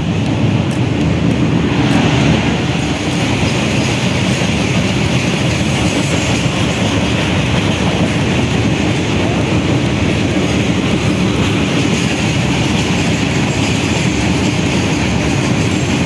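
Freight train of open-top goods wagons rolling past close by on the track, a steady loud rumble and rattle of its wheels and wagons on the rails.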